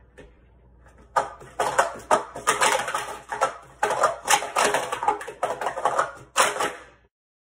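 Plastic sport-stacking cups clacking in rapid runs as they are stacked into pyramids and taken back down at speed. The clatter starts about a second in and stops shortly before the end.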